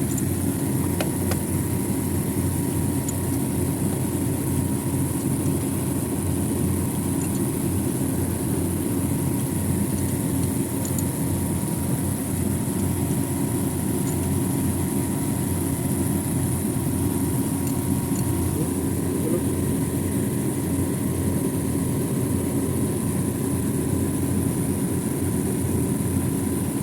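Steady mechanical drone of running machinery, with a constant hum and a high whine, and a few faint clicks.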